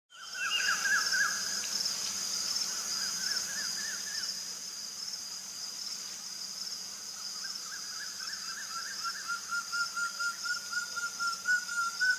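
Nature ambience: a steady high insect trill like crickets, with a bird calling in short repeated chirps that come in bursts at first and settle into an even string of about four notes a second near the end.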